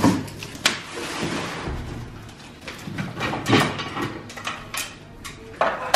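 Rustling and scraping as an artificial Christmas tree's branches are pulled from a cardboard box, with several sharp knocks as its plastic stand pieces are handled.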